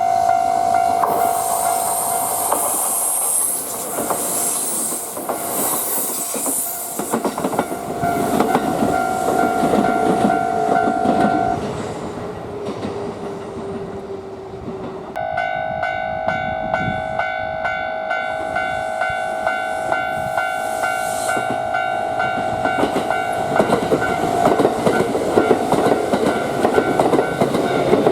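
Japanese railway level-crossing alarm ringing as a train passes over the crossing, with the rumble and clatter of wheels on the rails. The alarm stops about eleven seconds in and starts again a few seconds later, as the crossing closes for the next train.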